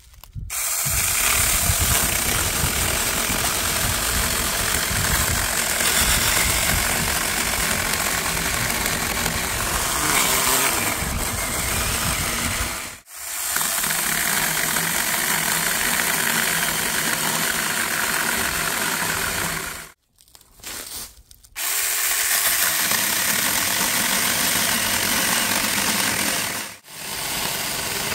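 Saker 4-inch battery-powered mini electric chainsaw running and cutting wood, a loud steady motor and chain noise broken by three short gaps.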